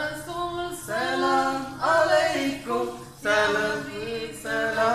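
A man singing a song unaccompanied, in short phrases with long held notes.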